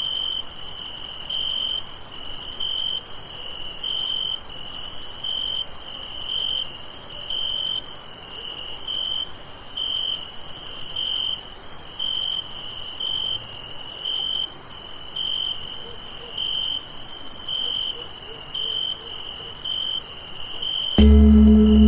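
Night crickets chirping in a steady rhythm of pulses, about one and a half a second, over a continuous high insect trill. Near the end a deep bell is struck once and rings on, marking the end of a one-minute meditation.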